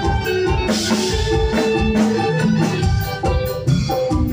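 Loud music played through a large PA sound system during a sound check: a keyboard melody over quick percussion and a heavy bass line.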